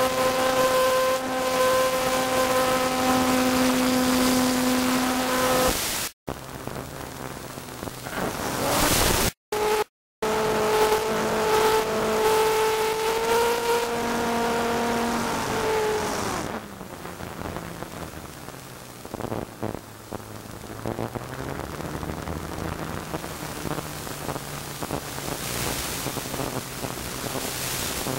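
Engine of the camera aircraft running, a steady pitched drone that drops lower and quieter a little past halfway. The sound cuts out completely for brief moments twice about a third of the way in.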